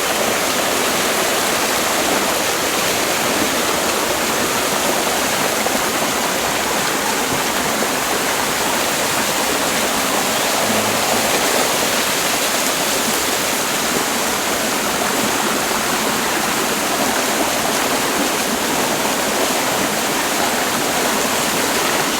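Waterfall rushing: a steady, loud wash of falling water close to the microphone.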